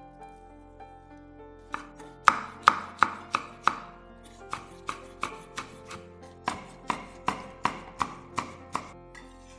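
Chef's knife slicing a red chili into thin strips on a wooden cutting board: a run of sharp knocks of the blade on the wood, about three a second, with a short pause partway through. Soft background music plays throughout.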